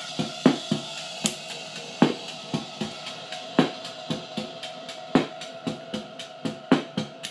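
A steady drum beat of kick, snare and hi-hat over a sustained droning tone and noise from a guitar-pedal feedback loop.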